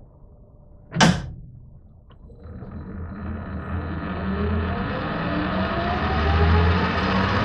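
A sharp clunk about a second in, then a metal lathe starting up: its motor and drive run with a low hum and whine that slowly rise in pitch and grow louder as the spindle comes up to speed.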